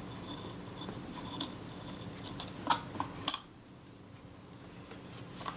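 Small handling noises: a few short clicks and scrapes, clustered about two to three seconds in, as a scalpel blade and fingers work thin glued leather covering off a metal camera body, over a faint steady hum.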